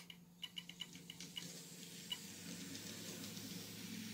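Kato N scale PA-1 diesel locomotive model running on the layout track during a test run: a few light clicks in the first second and a half, then a faint whirr and rolling rattle of motor and wheels that grows louder as it approaches.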